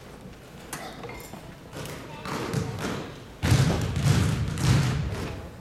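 Many basketballs bounced together on a gym floor, a dense run of heavy thuds that starts suddenly about three and a half seconds in.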